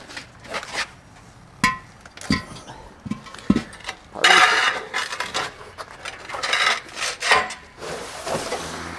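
Heavy metal engine parts being handled and set down: a string of knocks and clinks, with scraping and rubbing as they are slid into place, the longest scrape about four seconds in.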